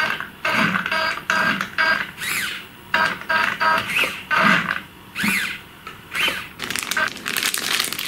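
An RC drift car's small electric motors whirring in short repeated bursts, some rising and then falling in pitch, as the steering is worked back and forth. Near the end, a plastic bag crinkles.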